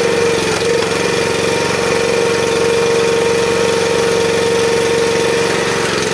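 Single-cylinder 13 hp Honda engine running a hydraulic log splitter's two-stage pump as the ram drives a log through a four-way blade. A steady whine sits over the engine note from about half a second in and drops away near the end.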